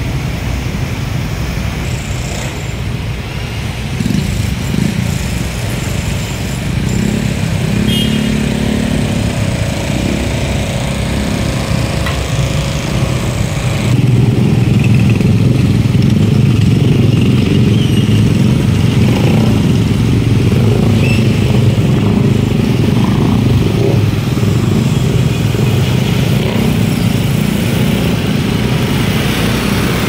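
Motorcycle engine running in city traffic, a steady low rumble that gets louder about halfway through.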